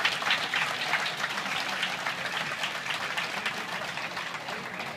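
Spectators applauding with a dense patter of hand claps that slowly dies away.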